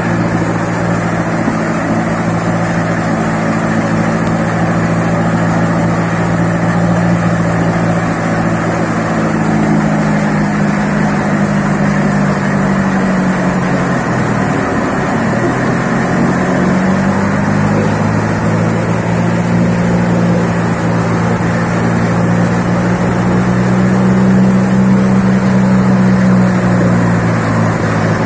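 Engine-driven sand hammer mill running while grinding sand: a steady engine drone over a dense rushing noise from the mill. About halfway through, the engine's pitch sags briefly, then recovers.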